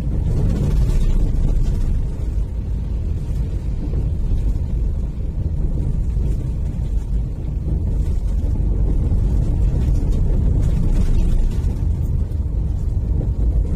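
Steady low rumble of a vehicle driving along a road, heard from on board: road and engine noise with no sharp events.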